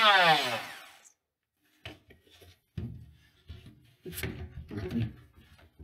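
A handheld power tool winds down after cutting the notches for the trap door's tabs, its whine falling in pitch and dying away within about a second. After a short pause come a series of knocks, scrapes and rubs as the trap door panel is pushed up against its wooden ceiling frame to check the fit.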